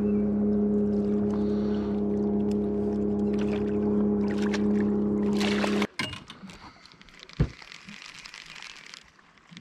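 Electric bow-mount trolling motor humming steadily, cutting off suddenly about six seconds in. Over it come splashes from a hooked fish thrashing at the surface beside the net. A single sharp knock follows about a second and a half after the motor stops.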